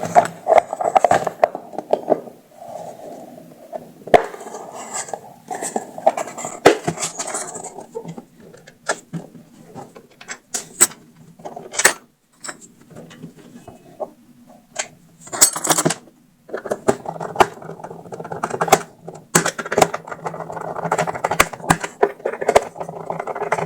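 Irregular clicks, taps and light metallic clatter of tools and small parts being handled on a workbench, as a replacement speaker driver is fitted.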